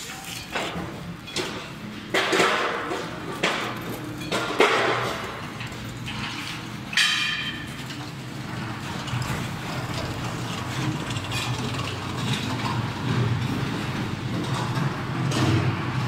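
Loading noise: several sharp metal bangs and knocks in the first five seconds, one ringing metallic clang about seven seconds in, then a steady low machine rumble.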